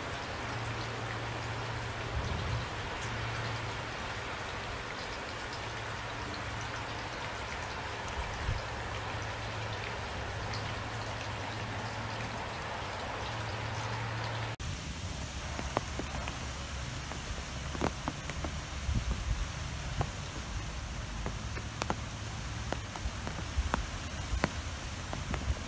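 Steady rain, a dense even hiss. About halfway through it cuts to a different rain recording, with many sharp drops tapping close by.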